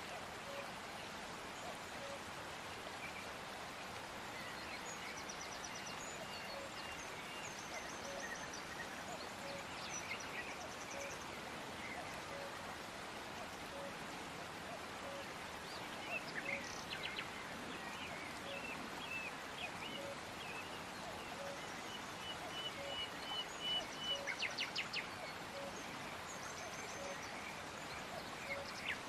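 Birds chirping, with short calls and rapid trills scattered over a steady soft hiss, busiest about two-thirds of the way through.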